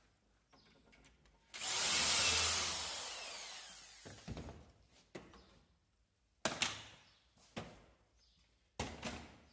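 Cordless drill boring a dowel hole through a metal drilling jig into a panel, running for about two seconds and then winding down. Several sharp knocks and clatters follow as the jig and bar clamps are handled.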